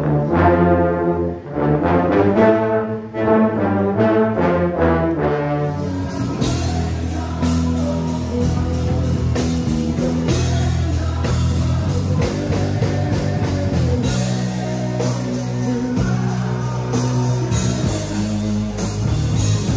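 A brass band playing sustained chords that move in steps. About six seconds in it gives way to a live rock band playing, with drums and a dense, steady low end.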